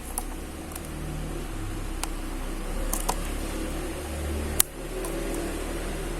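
Laptop parts being handled during reassembly: a few light plastic clicks and taps, with one sharp click about four and a half seconds in, over a steady low hum.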